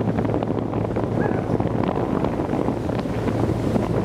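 Wind buffeting the microphone over a steady low rumble from an ATV rolling along a dirt trail while a sled dog team pulls it, with scattered small ticks and rattles.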